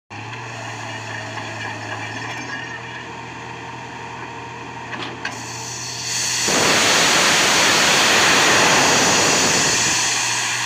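The diesel engine of a truck-mounted borewell drilling rig runs with a steady hum. About six seconds in, a loud rushing hiss of compressed air swells up, drowns the engine, then slowly eases off near the end.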